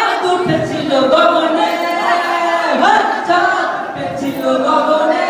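A group of voices singing together unaccompanied, several people at once, holding and sliding between notes.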